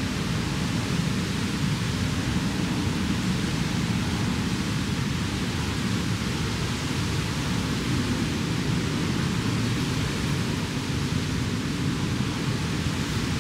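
Steady, even rushing noise with no pitch and no breaks, heaviest in the low range.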